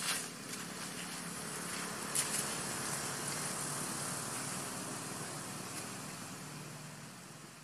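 A motor vehicle's engine running steadily, slowly fading away over the last few seconds, with a sharp click about two seconds in.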